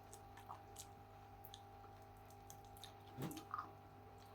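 Faint chewing and wet mouth clicks from eating chicken wings, with a slightly louder smack about three seconds in, over a low steady hum.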